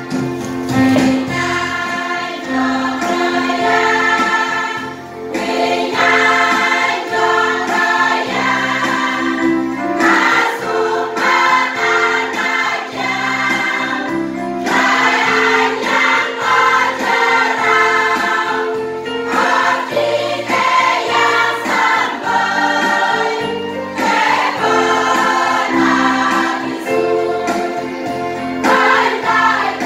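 A choir singing a hymn in the Koho language, voices continuous through the passage.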